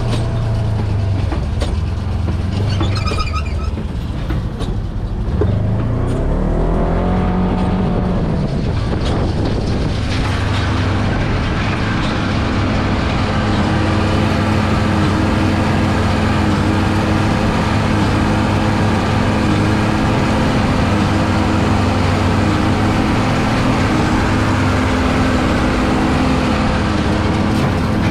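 Farm tractor engine running. Its pitch rises between about five and nine seconds in, as it revs up, and then holds steady at the higher speed.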